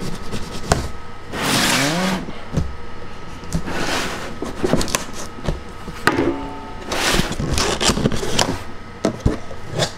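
Cardboard shipping box being opened: packing tape on the lid cut and pulled, with scraping and rustling of cardboard in several bursts and a few sharp clicks and knocks.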